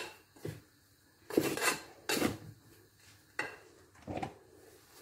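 A spoon scraping and knocking against a metal bowl in short, uneven strokes as dry flour and semolina are stirred together.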